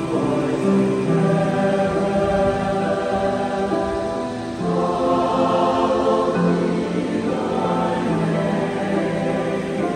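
Mixed chamber choir of men and women singing in harmony, holding long sustained chords; the chord changes and a new phrase begins about halfway through.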